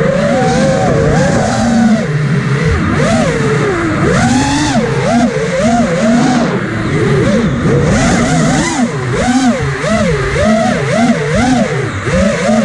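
Quadcopter's electric motors and propellers whining, the pitch swooping up and down about once a second as the throttle changes, over a steady rush of air.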